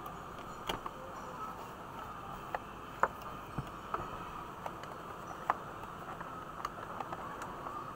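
A few light clicks and taps at irregular intervals as fabric and parts of a portable sewing machine are handled, over a faint steady hum; the machine is not stitching.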